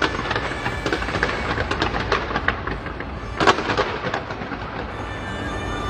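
A large fireworks display exploding: rapid sharp bangs and crackling over a continuous low rumble, with the loudest bang about three and a half seconds in.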